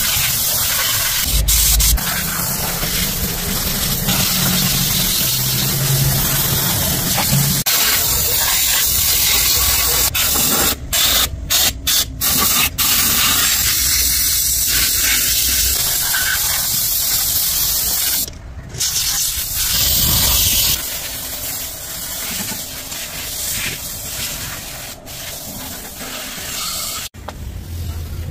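A high-pressure spray hissing steadily. It cuts off and restarts in several quick breaks just before the middle, stops once more about two-thirds through, and runs a little quieter near the end.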